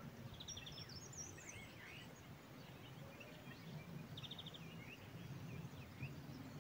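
Faint songbirds calling: scattered short chirps and a couple of quick trills of repeated notes, over a low steady background rumble.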